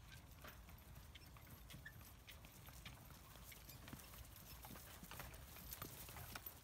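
Hoofbeats of a pair of carriage horses trotting on grass: soft, irregular clops and clicks over a low rumble.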